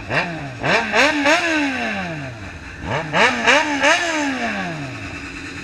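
Motorcycle engine revved in two bursts of three or four quick throttle blips, each burst ending with the revs sinking slowly back toward idle.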